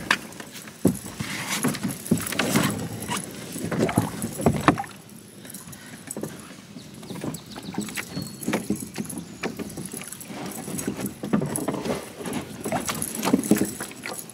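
Irregular knocks, bumps and scrapes of people climbing into a loaded canoe, feet and hands striking the hull and gunwales as one person steps along it and sits down.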